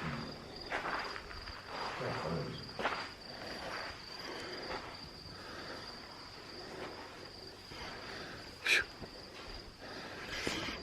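Crickets trilling steadily in a high, unbroken tone, with scattered soft footsteps and one brief sharper noise about nine seconds in.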